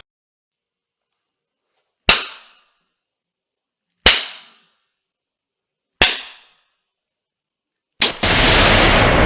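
Whip cracks: three single sharp cracks about two seconds apart, each dying away quickly. Near the end another crack is followed by a loud, sustained rushing noise.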